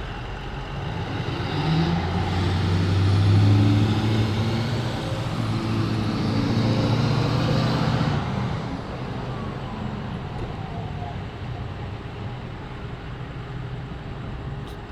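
A motor vehicle's engine and tyres on the road, swelling as it comes close, holding for several seconds, then fading about eight seconds in, over a steady low street hum.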